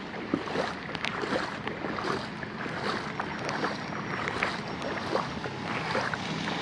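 Rain falling steadily on floodwater, a continuous hiss peppered with many small sharp drop taps.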